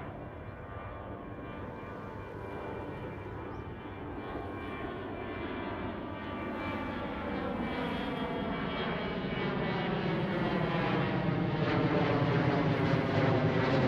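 Airplane taking off, its engine noise growing steadily louder as it approaches, with several whining tones that slowly shift in pitch over the rumble.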